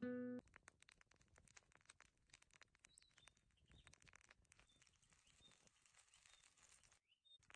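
Quiet outdoor ambience: dense faint crackling clicks, with short high bird chirps every half second or so. Guitar music cuts off just after the start.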